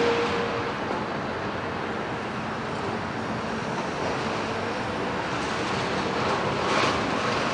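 Heavy demolition excavators working over rubble: a steady din of diesel engines and hydraulics mixed with metal scraping and clanking of rebar and concrete debris. A brief high metallic squeal comes right at the start, and a louder scrape follows near the end.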